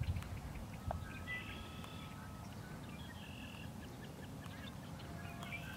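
Birds calling in the background: a few short, high, even-pitched chirps scattered through, over a low steady rumble.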